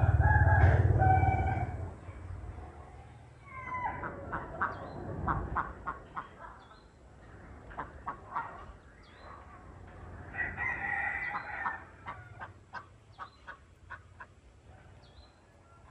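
A rooster crowing loudly at the start and again, more quietly, around ten seconds in. A run of short fowl calls comes between the two crows, and scattered short calls follow the second.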